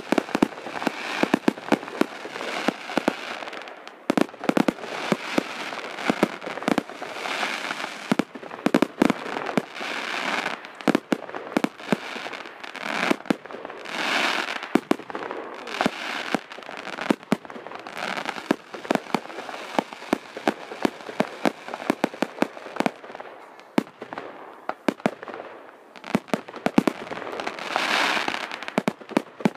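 Aerial fireworks bursting in rapid succession: many sharp bangs and pops over dense crackling, with louder swells of crackle about halfway through and near the end.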